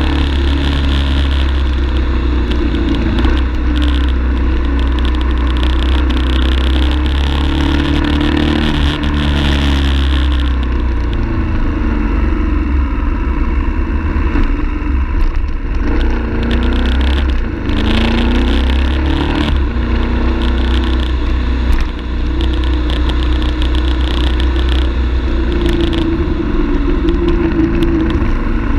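BMW F850GS parallel-twin engine under way, its revs rising and falling as the bike is ridden through a run of bends, over steady wind and road noise.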